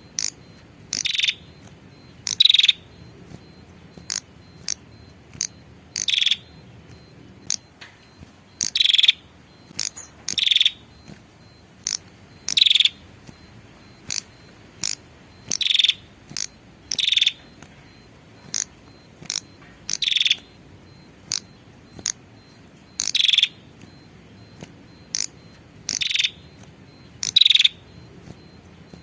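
Female prenjak (prinia) calling with short, sharp, high notes repeated every second or two: a call that draws in male prinias.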